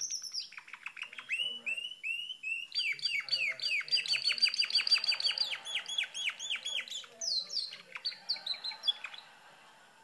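Domestic canary singing: a song of repeated down-slurred whistled notes that speeds into a fast trill about three seconds in, then breaks into varied phrases and stops about a second before the end.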